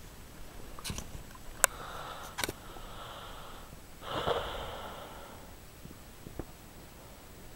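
Two breaths through the nose, airy and close to the microphone, each about a second and a half long, with a few sharp clicks from handling.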